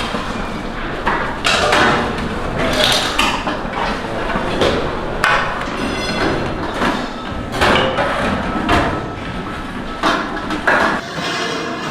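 Irregular knocks and clatter of tools striking a work surface in a busy pastry workshop, about one sharp hit a second over steady background noise.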